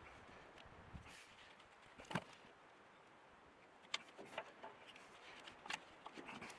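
Mostly quiet, with about six short clicks and knocks at irregular intervals; the loudest is a little after two seconds in.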